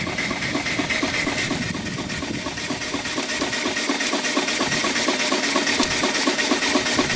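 Small steam engine running steadily under load at about 40 psi, driving an alternator, its exhaust beating in a rapid, even rhythm.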